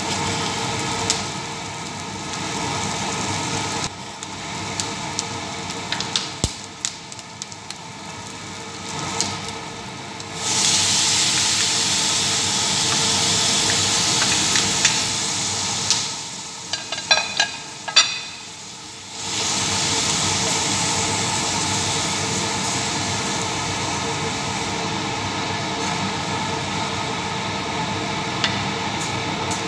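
Food sizzling in a stainless steel frying pan on a gas hob while being stirred with a spatula. About ten seconds in the sizzling turns louder and hissier for several seconds as chopped tomatoes go into the hot pan, then a few sharp clicks of the spatula scraping the plate and pan before a steady sizzle resumes.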